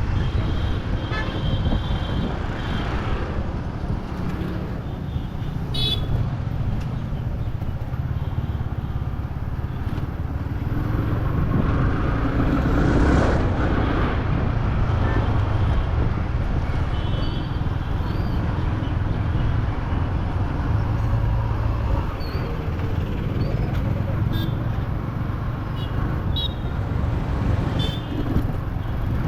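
Yamaha R15 V3's single-cylinder engine running as the motorcycle rides through town traffic, its note shifting with throttle. Vehicle horns toot briefly several times over it.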